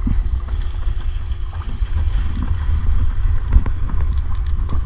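Wind buffeting the microphone: a loud, gusting low rumble, with a faint steady hum underneath.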